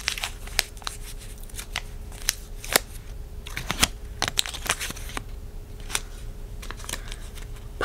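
A small folded paper slip being unfolded by hand, with irregular crinkles and sharp clicks.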